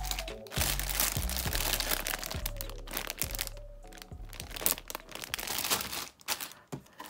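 Crinkling of the thin clear plastic bags around a plastic model kit's parts sprues as they are lifted and handled, in irregular crackles. Background music plays under it and fades out about four seconds in.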